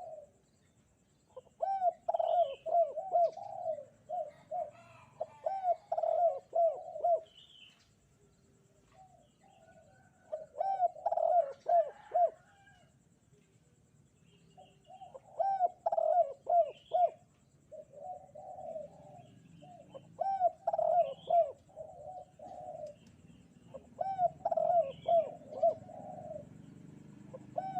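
Spotted dove (derkuku) cooing in repeated bouts of several quick coos, with pauses of one to a few seconds between bouts. Faint chirps of small birds are heard in the background.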